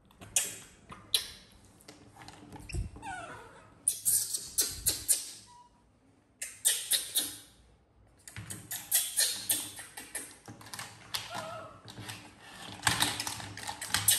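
Plastic toys rattling and knocking against a wooden tabletop as a baby macaque handles and pushes them, in repeated bursts of clicks. A few short high squeaks from a baby macaque come between the bursts.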